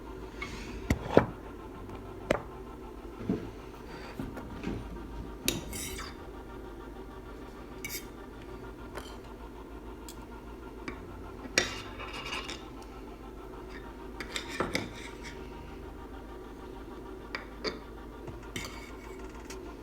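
Cutlery clinking and scraping on a plate as a fried egg is cut and eaten, in scattered knocks with the loudest about a second in, over a steady low hum.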